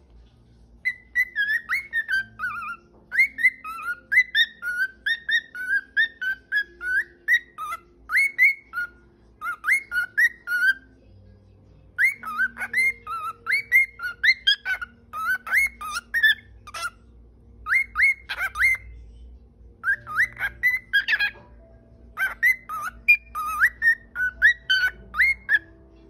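Cockatiel whistling a song: quick runs of short whistled notes, each bending and falling in pitch, in repeated phrases with a few short breaks between them.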